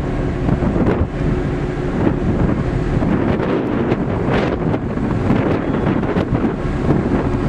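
Wind buffeting the microphone on the open deck of a ship under way, over the steady low hum of the ship's engines.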